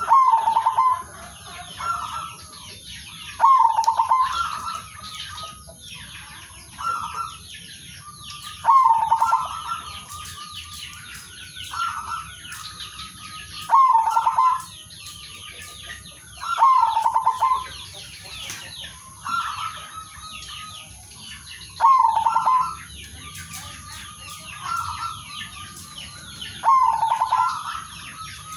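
Male zebra dove cooing its rhythmic call, a loud phrase every few seconds with fainter coos in between. Constant high chirping of other birds behind it.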